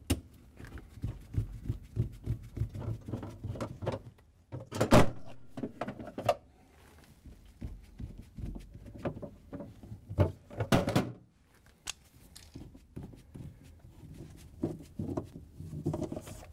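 A hand-held Phillips screwdriver backs screws out of plastic shelf rails inside a refrigerator's freezer liner, with small clicks and scraping as the screws turn. A few louder plastic knocks come as the rails are pulled free, the loudest about five seconds in and again around ten to eleven seconds.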